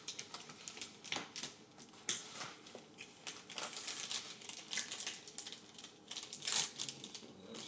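Plastic MRE flameless-ration-heater bag crinkling and rustling as it is worked down into its cardboard carton: a run of irregular small crackles and clicks, with a louder crinkle about two seconds in and again near the end.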